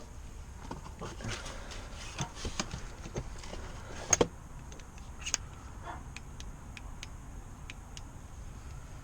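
Handling noise from tools and parts: a run of small clicks, taps and rattles, with a sharper double knock about four seconds in and a few scattered ticks near the end.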